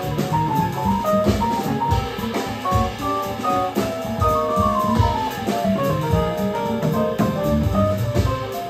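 Live jazz combo playing: upright bass walking underneath, a drum kit with cymbals, and a quick line of short melodic notes on keyboard that runs downward about halfway through.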